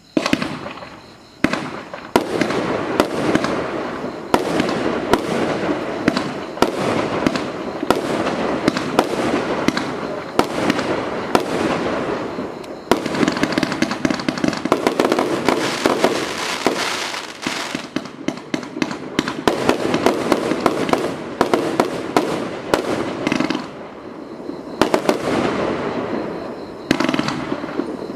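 Firework cake (barrage) firing: a rapid, continuous volley of launch thumps and aerial bursts, starting suddenly and keeping up with hardly a gap.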